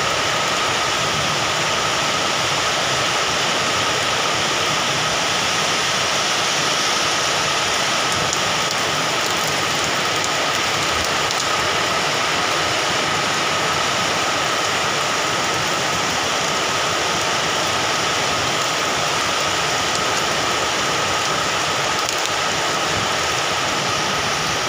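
Heavy rain pouring steadily onto wet concrete and puddles: a dense, even hiss of downpour.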